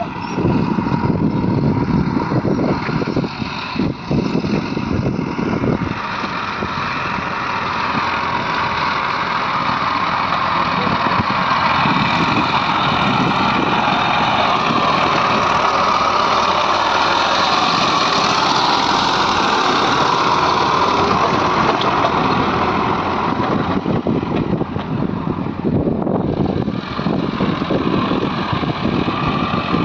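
Diesel engine of a JCB 3DX backhoe loader running steadily at work, growing louder through the middle and easing briefly near the end.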